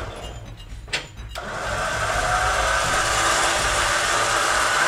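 TJM electric winch running under its wired remote control, its motor and gears giving a steady, even whine as the cable is spooled. It starts about a second and a half in, just after a short knock.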